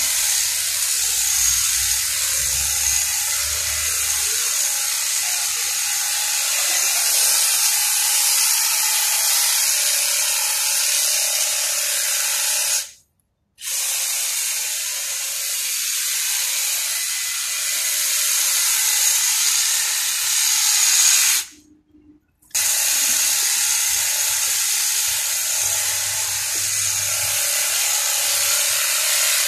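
Makita hedge trimmer running steadily, its reciprocating blades whirring as they cut through a leafy shrub. The sound drops out completely twice, briefly, about 13 and 22 seconds in.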